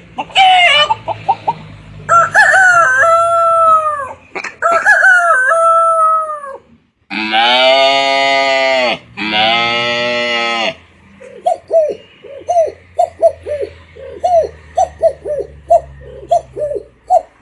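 Animal calls mimicked by voice: a short call, then two long rooster-style crows that hold and fall away, then two loud, buzzy calls with many overtones, each over a second long, then a rapid run of hen-like clucks, about two to three a second.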